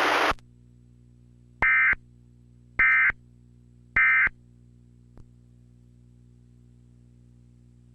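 Emergency Alert System data tones: three short, identical bursts about a second apart, the end-of-message code that closes a tornado warning broadcast. A hiss cuts off just after the start, and a faint steady hum lies underneath.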